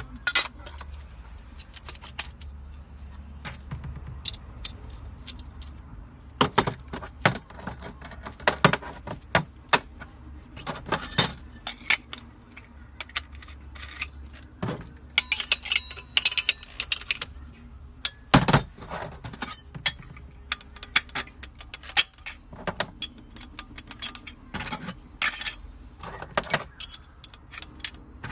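Metal wrenches, nuts and diamond cutting discs clinking and clattering as they are handled and set down on a hard surface, in irregular clusters of sharp clicks over a faint low hum.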